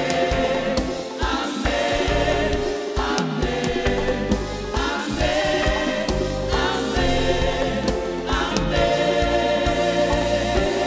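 Gospel choir singing a French worship song in sustained harmony over instrumental accompaniment with a steady bass line.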